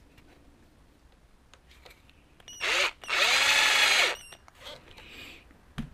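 Small cordless electric screwdriver driving a tie-rod screw: a brief blip, then about a second of steady running that rises in pitch as it spins up and falls as it stops.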